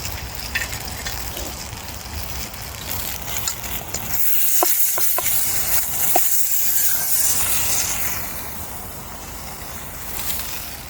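Steak frying in a pan over a campfire: a steady sizzle that swells for a few seconds in the middle, with a few short pings.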